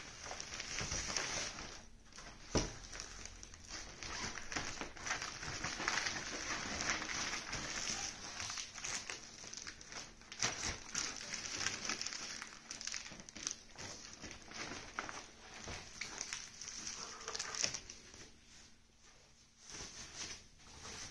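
Plastic wrapping crinkling and rustling as a ring light and its parts are pulled out of their packaging and carry bag, with a sharp click about two and a half seconds in.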